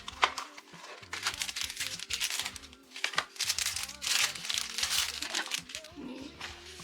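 Packaging crinkling as it is handled, in two stretches of a second or two each, with a sharp click just after the start. Background music plays underneath.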